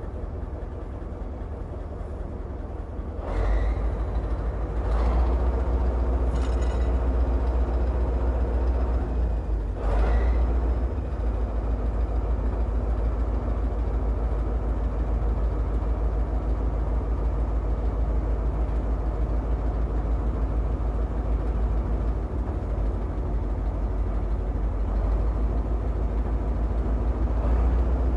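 A heavy engine running steadily, getting louder about three seconds in, with four sharp knocks in the first ten seconds.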